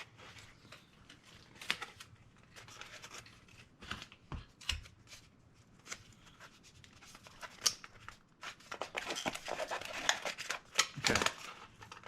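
Tape being pulled off the roll, torn and pressed down onto cardboard, with scattered handling noises; the activity is busiest near the end.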